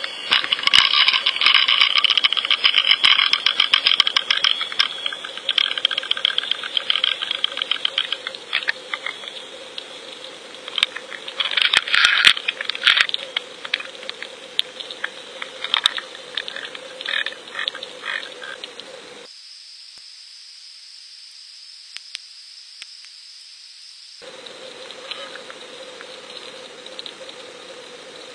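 Rattling clicks picked up underwater by a fishing-line camera, dense at first and thinning to scattered clicks after about eight seconds, over a steady hum. Near the end the hum drops out for about five seconds, leaving only a high hiss, then returns.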